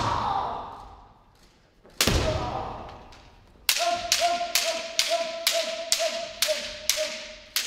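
Bamboo shinai strikes on kendo armour. A single strike comes about two seconds in, then a fast run of about nine strikes roughly half a second apart, the pattern of kirikaeshi's left-right men strikes. A high, held kiai shout carries under the run, and each strike echoes in the wooden hall.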